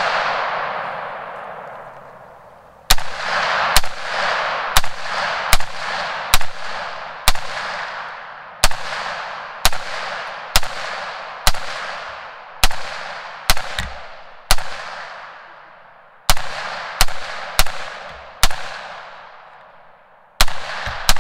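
A PSA AR-10 rifle in .308 with a standard A2 birdcage flash hider, fired semi-automatically. There are about nineteen shots at roughly one a second with a few short pauses, and each shot is followed by a long echo that dies away.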